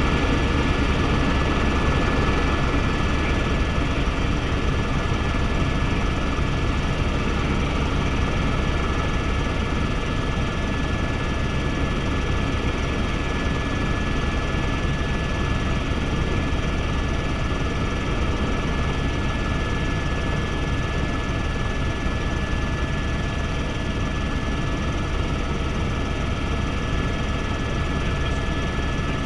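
Helicopter in steady flight, heard inside the cabin: the engine and rotor running as a constant low drone, with a steady high-pitched whine over it.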